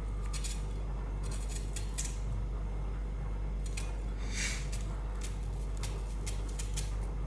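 Kitchen knife cutting through vegetables held in the hand, with no board: a string of short, irregular cuts, some in quick pairs, over a steady low hum.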